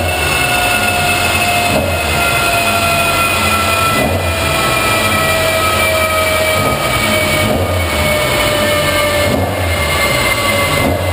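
Mk1 Ford Cortina race car running loud and steady on a rolling road, its driven wheels spinning the dyno rollers. A whine falls slowly in pitch throughout.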